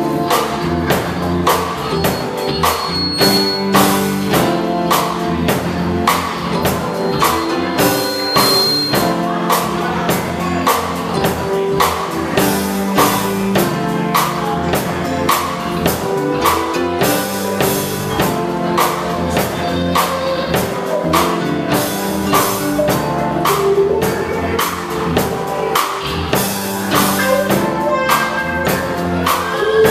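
Live funk band playing a steady groove on drum kit, electric guitar and keyboards, the drum strokes falling at an even beat throughout.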